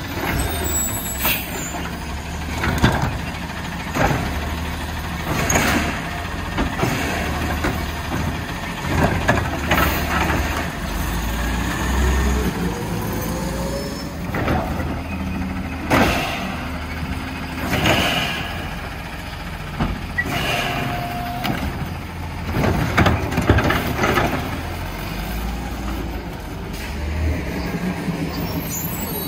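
Automated side-loader garbage truck's diesel engine running steadily, broken by repeated air-brake hisses and clanks as its arm lifts and tips the bins.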